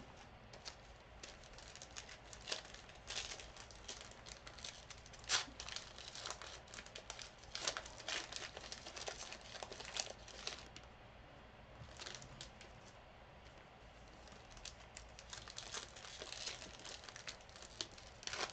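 Trading-card pack wrappers being torn open and crinkled as cards are handled: a string of irregular crackles and rustles, sparser for a few seconds partway through.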